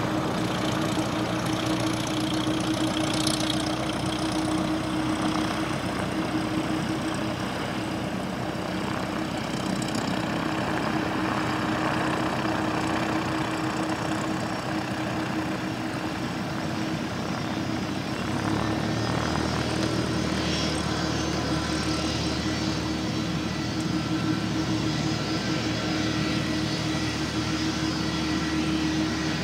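Airbus A330 jet airliner running on the ground, a steady drone with a constant hum through it.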